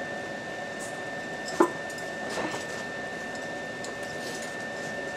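BioLite wood-burning camp stove running with its fan, heating a kettle of water that is starting to tick and sizzle toward the boil: a steady hiss with a thin high whine, scattered crackles, and one sharp snap about a second and a half in.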